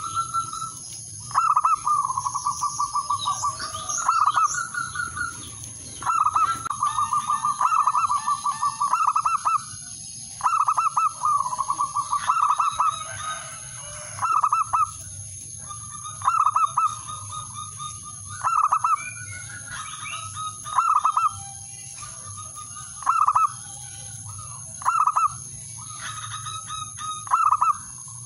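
Male zebra dove (perkutut) singing its cooing song over and over. Each phrase is a few short clipped coos followed by a rolling trill, with a new phrase starting about every two to three seconds.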